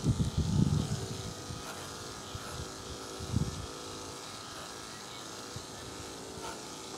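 Andis AGC 2-speed electric dog clipper running steadily with a low, even hum as it cuts through the dog's coat. A low rumble of handling noise sounds in the first second.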